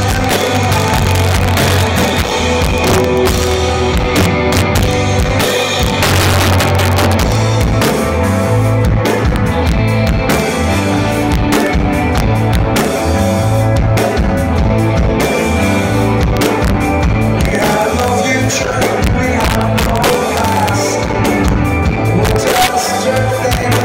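Live post-punk rock band playing: male lead vocal over bass guitar, electric guitars and a full drum kit with cymbals, heard in the hall.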